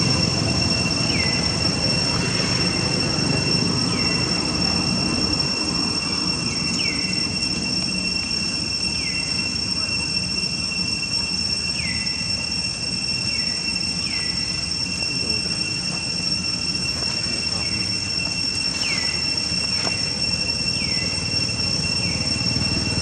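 Steady high-pitched insect drone, with short falling chirps every second or two.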